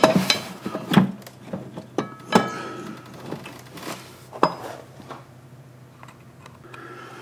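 Metal parts clinking and knocking as a motorcycle's rear brake caliper is worked back into place over the brake disc: several sharp knocks with a brief metallic ring in the first half, then quieter scraping and handling.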